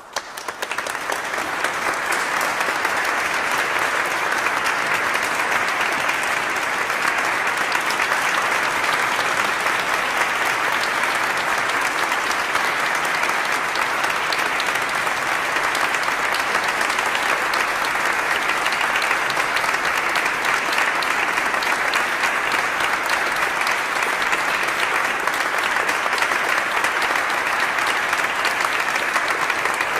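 A large crowd applauding: dense, steady clapping that swells up from silence within the first second or two and then holds at an even level.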